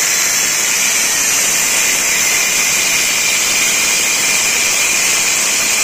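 A power tool cutting through the stock steel exhaust pipe of a Yamaha R15, a loud, steady, unbroken cutting noise.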